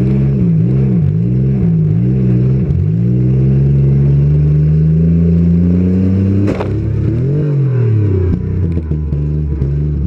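Demolition derby car's engine revving up and down as the car manoeuvres, then climbing steadily under acceleration. A single sharp bang comes about six and a half seconds in, and the revs drop and swell again after it.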